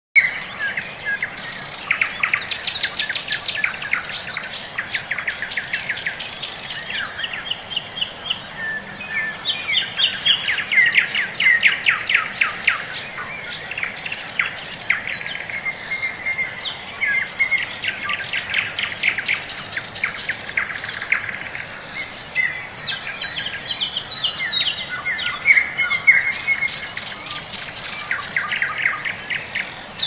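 Songbirds singing: quick chirping trills in phrases a second or two long, repeated again and again over a faint steady outdoor hiss.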